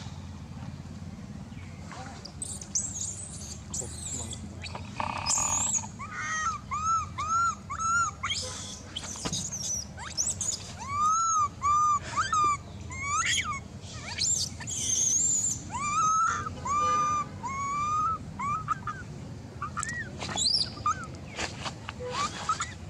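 Baby long-tailed macaque crying for milk: a long string of short, high, rising-and-falling squeals, two or three a second in runs, beginning about two seconds in and tailing off near the end, over a steady low background hum.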